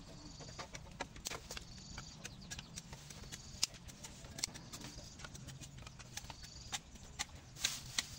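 Dry sticks clicking and knocking against each other as they are handled and laid over a fire pit, with a louder crackle of dry bamboo leaves being pressed onto the pile near the end.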